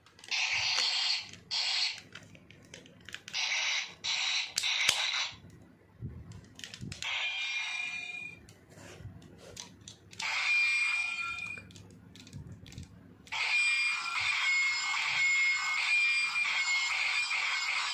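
Electronic sound effects from the built-in speaker of a DX Sakanamaru toy sword as its Hiden Disk is fitted and spun. The effects come as several short tinny bursts, then from about two-thirds in a continuous jingle with a held high tone.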